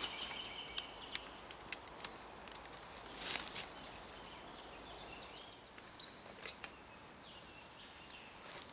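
Faint outdoor ambience: birds calling in short high chirps, with scattered clicks and rustles and one louder rustle about three seconds in.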